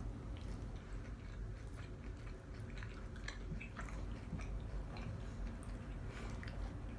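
A person chewing food close to the microphone, with soft wet smacks and small clicks at irregular intervals over a low steady hum.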